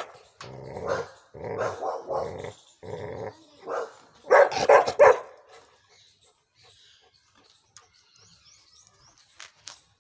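A dog barking repeatedly in short bursts, with the loudest run of barks about four and a half seconds in. The barking stops a little past halfway, leaving only a few faint clicks near the end.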